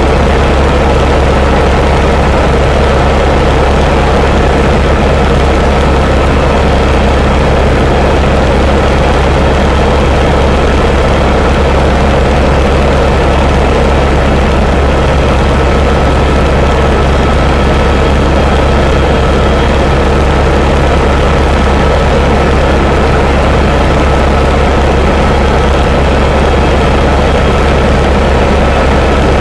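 Helicopter in flight heard from inside the cabin: loud, steady turbine engine and rotor noise with a deep hum and a constant high whine over it.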